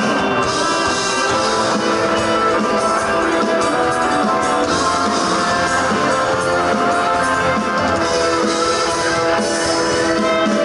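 Live rock band playing through a PA system: electric guitars, a Yamaha Montage keyboard and a drum kit, with sustained notes and steady cymbal wash.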